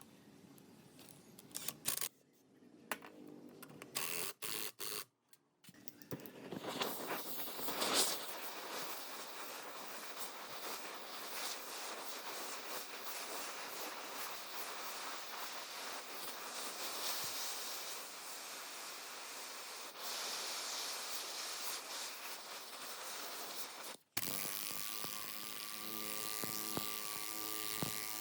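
A few scattered clicks and knocks, then a small electric motor running steadily with a rushing, grinding noise. About three-quarters of the way through the sound cuts off sharply and a steadier hum with a clear pitch takes over.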